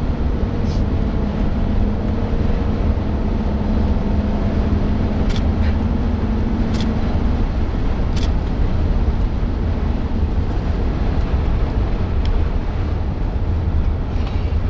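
Car driving, a steady rumble of road and engine noise heard from inside the cabin, with a faint engine hum that fades about halfway and three light clicks in the middle.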